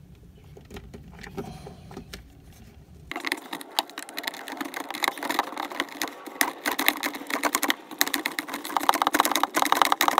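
A hand ratchet with a socket, clicking rapidly as it is swung back and forth to drive a screw in. The clicking starts about three seconds in.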